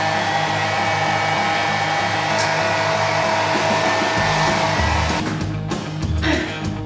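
Hand-held hair dryer running steadily on long hair, a rushing blow with a faint steady whine, switched off about five seconds in. Background music with a steady beat plays throughout.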